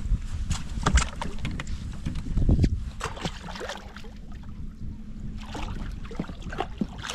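Irregular knocks and clunks of handling aboard a small fishing boat, over a low steady rumble, as a landed pike is put back into the lake.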